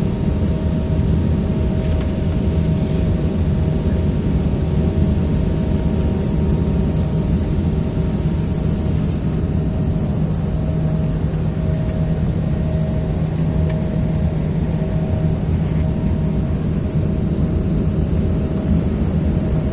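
Airliner cabin noise in flight: a steady, loud rush of engines and airflow with a low hum and a faint higher drone that do not change.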